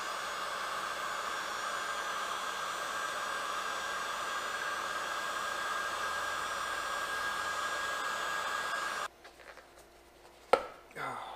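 Electric heat gun blowing steadily, a fan with a hiss of hot air, warming a hose piece so it will slip off; it is switched off and cuts out suddenly about nine seconds in. About a second later there is a sharp knock, then a brief falling squeak as the warm part is handled.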